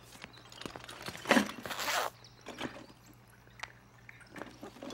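Handling noise from a holdall being opened and rummaged: a short rustling scrape about a second and a half in, then a few light clicks and knocks.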